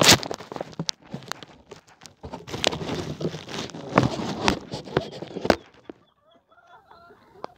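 Loud crackling and rustling with many sharp clicks, stopping about five and a half seconds in; after that, hens clucking softly.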